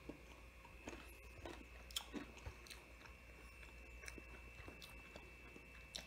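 Faint chewing of a crispy breaded calamari ring, with scattered soft crunches of the breading.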